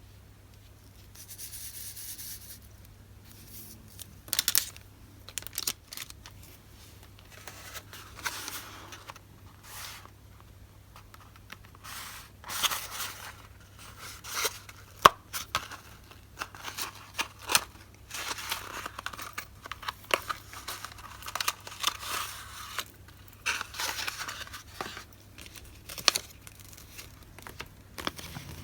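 Paper goods and their packaging being handled: irregular rustling and crinkling, tearing, and sharp taps and clicks.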